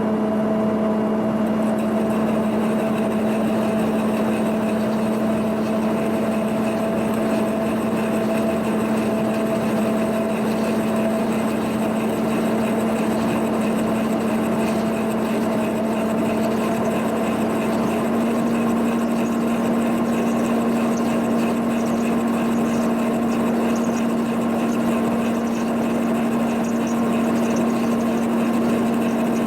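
Boring machine running steadily, a boring bar with a double cutter cutting through the cast-iron bore of a planter hitch: a constant motor hum with a steady tone and cutting noise over it.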